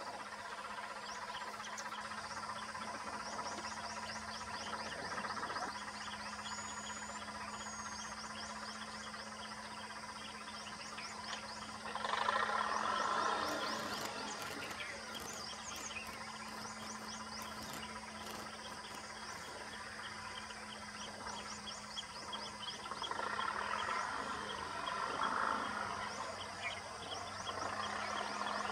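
Insects chirping in a rapid, steady ticking chorus over a steady low hum, with two louder spells of noise, one about twelve seconds in and one near the end.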